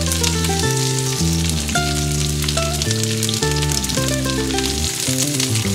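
Background music with slow, held notes that change every second or so, over sliced onions sizzling in a wok with a fine crackling hiss.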